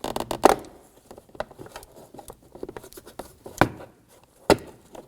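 Plastic trim tool prying a door's interior sail panel loose: scattered light plastic clicks and scraping, with two sharp snaps about three and a half and four and a half seconds in as the panel's clips pop free.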